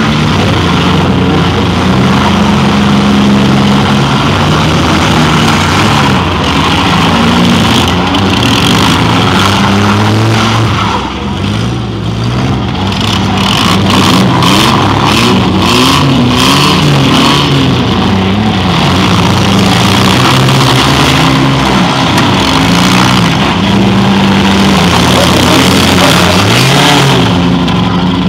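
Several demolition derby cars' engines revving up and down together, under hard load as they push and ram. About halfway through comes a run of sharp knocks.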